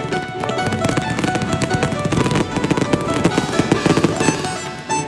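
Fireworks going off in a dense run of quick bangs and pops, with background music playing over them.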